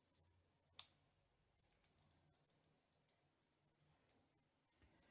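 Faint small clicks from a precision bit being handled in a small electric screwdriver's magnetic bit holder, with one sharper click about a second in; otherwise near silence.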